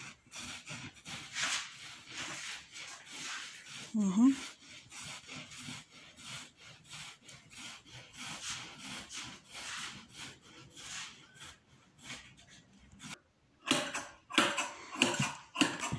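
A hand carder rubbed over woven alpaca poncho cloth in quick, repeated scraping strokes, combing up the nap to make the cloth warmer and finer. Near the end, after a short break, sharper snips of scissors trimming the cloth.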